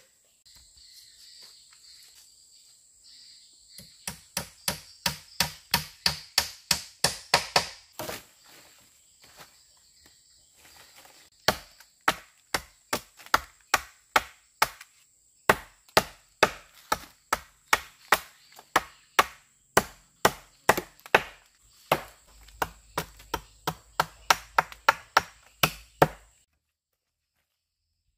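Wood being chopped with a blade, stroke after stroke: a quick run of about three strokes a second, then after a pause longer runs of about two a second with short breaks. A steady high-pitched insect drone runs behind. Everything stops abruptly about two seconds before the end.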